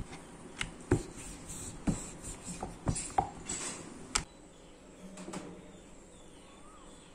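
Wooden rolling pin rolling out dough on a wooden board, with several sharp knocks of wood on wood in the first four seconds. After that it goes quieter, with a faint low hum.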